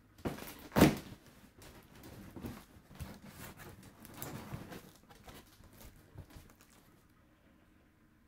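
A package being opened and its packaging handled by hand: irregular tearing, crinkling and rustling, loudest about a second in, dying away about seven seconds in.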